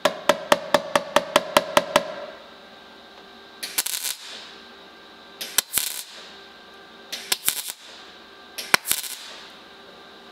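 About a dozen quick hammer blows on thin car-body sheet steel, ringing, setting a small patch plate into a cut-out in the panel. Then four short crackling bursts of MIG tack welding, each about half a second, fixing the patch in place.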